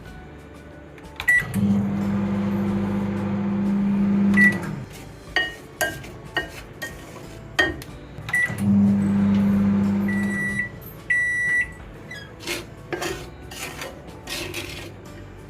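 Microwave oven running with a steady low hum twice, for about three seconds and then about two seconds. Between and after the runs come short keypad beeps and sharp clicks from the buttons and door, and a longer pair of beeps about eleven seconds in.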